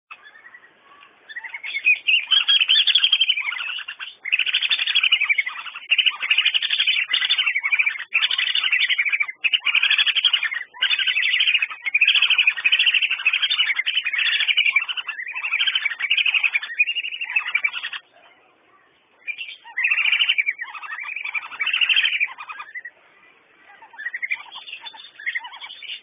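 Wandering whistling duck (Dendrocygna arcuata) calling: rapid high whistles in long, near-continuous bouts. There is a break of about a second about two-thirds of the way in, and the calls are fainter near the end.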